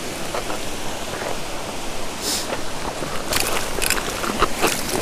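Steady rush of river water, with a hooked rainbow trout splashing at the surface several times in the second half.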